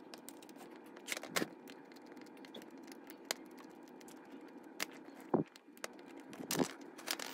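Small clicks, taps and scrapes of a screwdriver and fingers working screws out of a model locomotive's metal chassis, with a few louder knocks of the chassis being handled.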